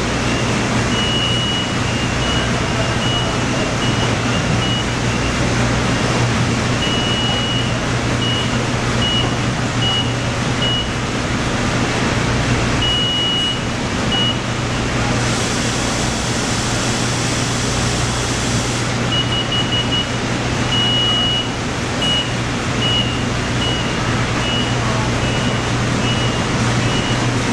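Steady din of newspaper mailroom machinery with a low hum, over which an automatic guided vehicle's warning beeper sounds in short, irregularly spaced high beeps. The beeping stops for a few seconds in the middle while a hiss comes in, then starts again.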